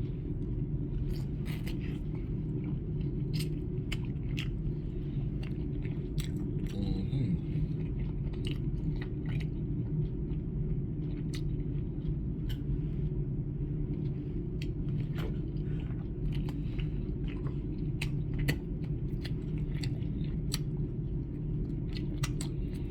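A person chewing and biting into a chicken wing, with many short wet mouth clicks and smacks scattered throughout, over a steady low hum.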